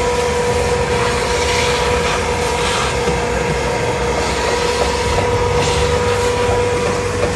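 Vacuum cleaner running with a steady high-pitched motor hum, cleaning out the car's floor. Under the hum, a suction hiss swells and fades a few times.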